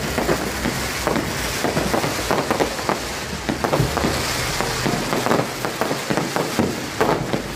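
Fireworks going off: a dense, irregular run of sharp pops and crackles, several a second, over a steady hiss.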